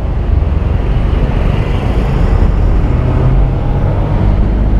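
Road traffic passing on a busy street, a steady low rumble of cars and motorbikes.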